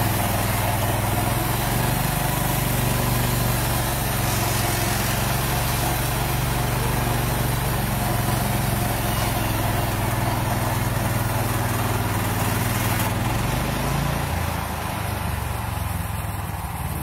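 Small gasoline engine of a sawmill running steadily, then dropping in pitch and level about fourteen seconds in.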